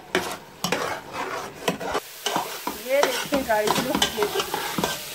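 A spoon stirring and scraping grated carrot halwa around a steel pot in quick strokes, some of them squeaky, while the carrots sizzle in ghee. The halwa is being roasted until the ghee separates.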